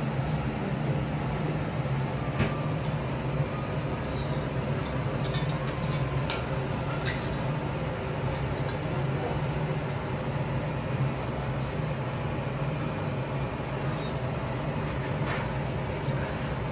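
Metal knife, fork and spatula clicking and scraping on a steel teppanyaki griddle while meat is cut and moved. There is a single tap about two seconds in, a run of clicks a few seconds later and another tap near the end, all over a steady low hum.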